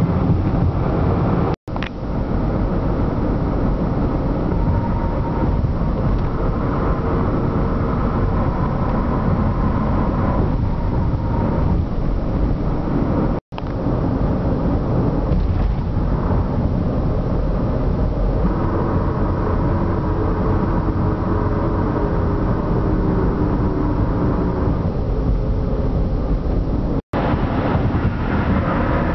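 Car tyres rolling at highway speed over grooved concrete pavement: a steady low rumble with a faint humming tone, which drifts slightly in pitch, riding on top of it. The sound cuts out for a split second three times.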